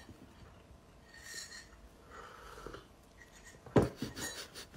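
Teaspoon stirring and clinking in a ceramic mug, faint, with one sharp knock about four seconds in.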